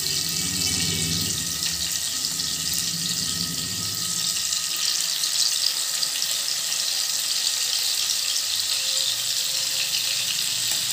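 Butter and refined oil sizzling steadily in a nonstick frying pan on a low flame as marinated boneless chicken pieces are laid in.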